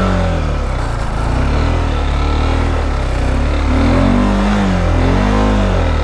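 Motorcycle engine running at low speed over a steady low engine drone, its revs rising and falling several times as the throttle is opened and closed.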